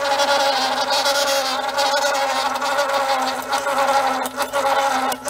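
Cowells 90ME lathe running on its small electric motor: a steady, buzzing whine, with a few brief dips in level near the end.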